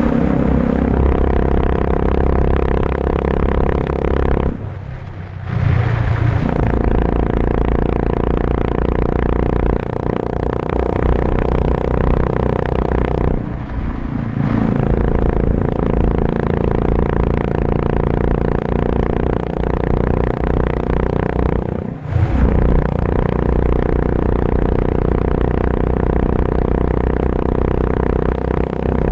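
Honda CB350 RS single-cylinder engine running loud through an aftermarket Red Rooster Performance exhaust with the dB killer removed. It holds a steady engine note, with the throttle closing and picking up again three times, about 5, 14 and 22 seconds in.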